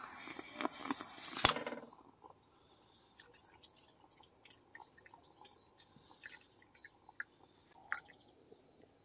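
Aluminium moka pot hissing and sputtering on the gas burner as the coffee comes up, with a sharp click about a second and a half in. After about two seconds the sound drops to faint scattered taps and a quiet trickle of liquid being poured into a plastic cup.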